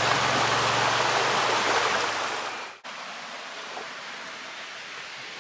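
A stream's water rushing in a steady, loud hiss. It fades about two and a half seconds in, and after an abrupt cut a much quieter steady outdoor background follows.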